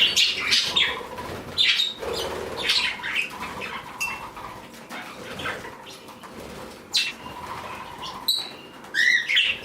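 Small pet parrots chirping repeatedly, with the rustle of wings flapping as they fly about.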